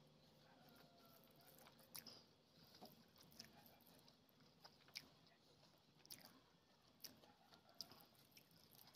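Faint close-up eating sounds: wet mouth clicks of chewing, and fingers squishing and mixing rice with egg curry gravy on a plate. Short clicks come every second or so.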